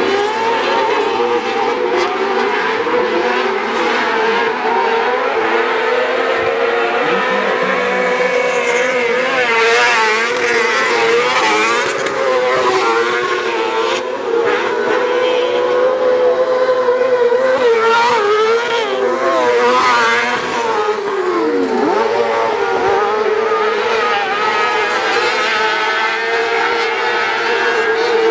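Autocross buggy engines racing at high revs, several at once, their pitch rising and falling continually through gear changes and corners. About three-quarters of the way through, one engine's pitch dips sharply and comes back up.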